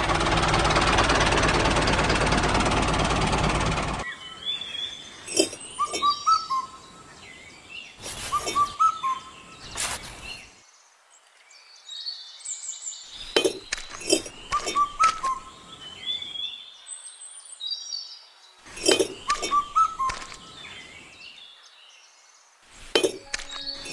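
A loud, even rushing noise stops abruptly about four seconds in. Small birds then chirp in short upward-gliding calls, along with clusters of light clicks and taps as miniature bricks are set into place.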